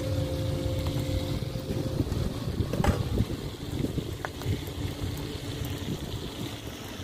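Wind buffeting the microphone outdoors, a fluctuating low rumble, with a faint steady hum that fades out in the first two seconds and a few faint clicks.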